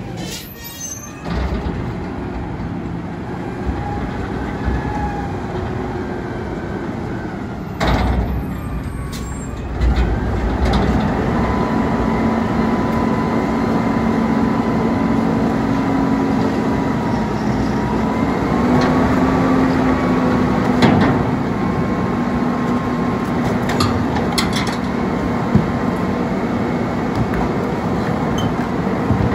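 An Autocar ACX refuse truck's natural-gas engine running, first moving close past, then idling with a steady hum. Around three-quarters of the way through, a few sharp knocks sound as trash cans are tipped into the steel container held on its front forks.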